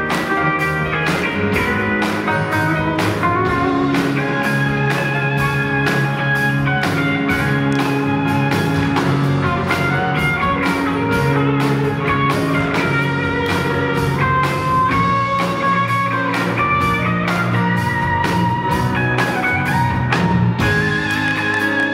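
Live band music with no vocals: guitars playing over a steady drum beat, with sustained, bending lead notes on top.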